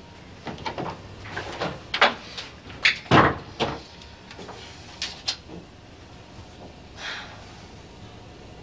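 A string of short, sharp knocks and clatters over about five seconds, the loudest just after three seconds in, then a softer rustle about seven seconds in.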